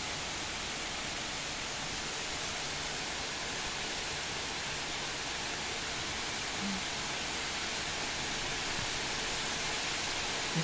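Heavy thunderstorm downpour: a steady, unbroken hiss of rain pouring onto the trees and bushes.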